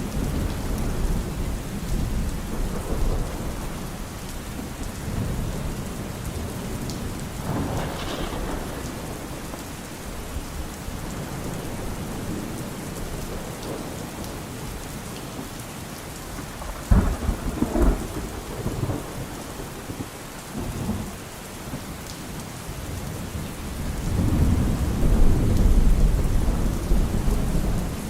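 Steady rain falling through a thunderstorm, with rolling thunder. There is a sharp thunderclap about two-thirds of the way in, and a long low rumble swells near the end.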